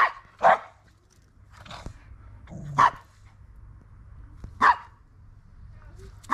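Poodles barking during play: a handful of short, sharp single barks, spaced irregularly a second or two apart.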